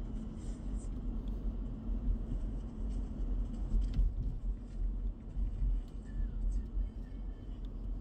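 Steady low road and engine rumble of a car driving at moderate speed, heard from inside the cabin, with a few faint ticks.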